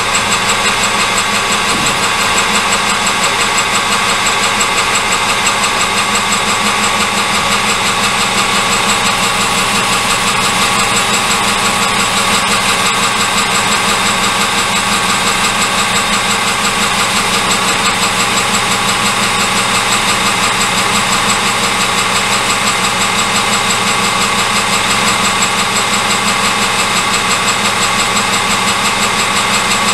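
Metal lathe running steadily, a constant machine hum with several held tones and no change in speed.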